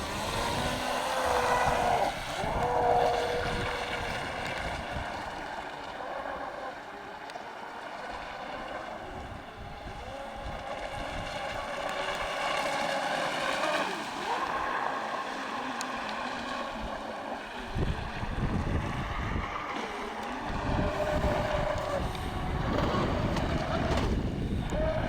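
Electric RC boat's motor whining steadily, its pitch drifting a little with the throttle. Wind buffets the microphone, most heavily near the start and in the last few seconds.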